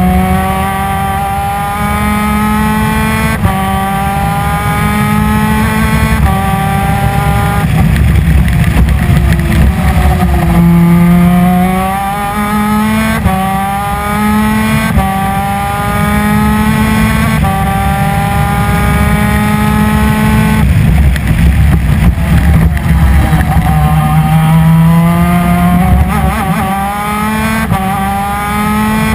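A 250 cc two-stroke twin-cylinder superkart engine at full throttle. It climbs in pitch through the gears, dropping back at each upshift. Twice its pitch falls away as if off the throttle for a corner, then it pulls up through the gears again.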